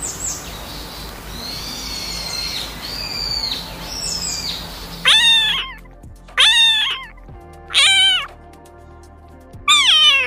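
A cat meows four times, about a second and a half apart, each call falling in pitch at the end, over background music. Before the meows there is a hiss with a few high chirps.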